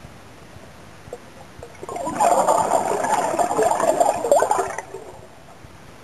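A scuba diver's exhaled breath bubbling out of the regulator for about three seconds, starting about two seconds in, over a steady underwater hiss.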